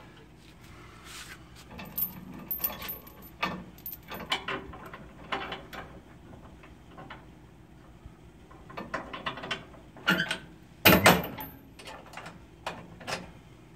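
Weight distribution hitch spring-bar chains and snap-up brackets clicking and clanking as the brackets are worked and locked onto the trailer frame, with one loud metallic clank about eleven seconds in.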